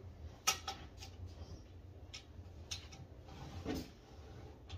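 Scattered clicks and knocks from handling a wooden chest of drawers and its metal drawer pulls, the sharpest about half a second in and a duller knock a little past three and a half seconds in, over a low steady hum.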